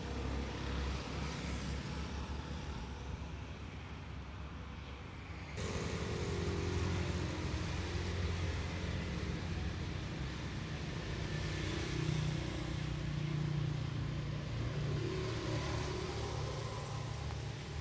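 Road traffic: motor vehicles and motorcycles running and passing, over a steady low engine hum. The sound changes abruptly about five and a half seconds in, and some pitch glides of a passing vehicle come near the end.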